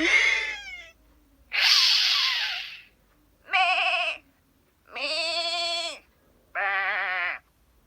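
Cartoon sheep bleating sound effects: three separate wavering bleats, each under a second long, come in the second half. They are preceded by a sudden burst with falling whistle-like glides and then a harsh, noisy burst.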